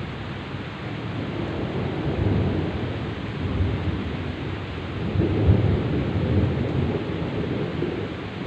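Heavy rain pouring steadily under rolling thunder. The low rumble swells about two seconds in and again, louder, about five seconds in, then fades back under the rain.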